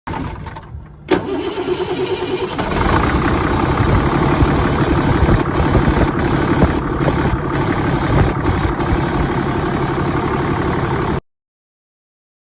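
Freightliner bucket truck engine cranking briefly and starting with a sharp click, then running steadily and picking up about two and a half seconds in.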